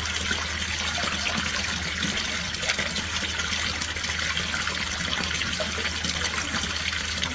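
A steady stream of running water gushing and splashing without a break.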